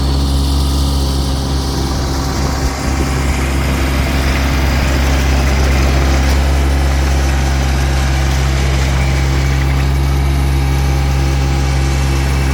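Toro Dingo TX1000 mini skid steer's engine running steadily at idle, with a couple of short knocks about three seconds in.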